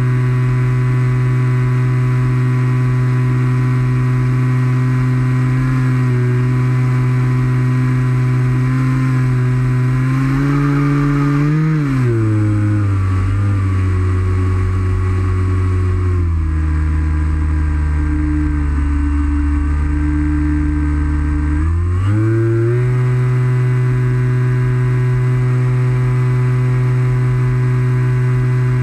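Model airplane's motor and propeller running at a steady pitch, heard close up from a camera mounted on the plane. About twelve seconds in the pitch drops, holds low for several seconds, then rises back to its earlier steady pitch a little after twenty-two seconds.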